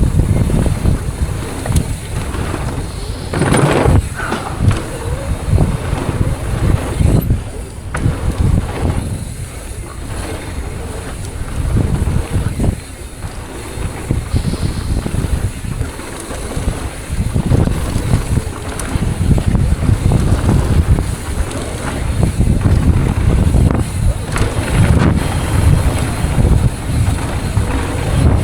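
Wind buffeting the camera microphone over the rumble and rattle of a mountain bike riding down a bike park trail, in uneven surges.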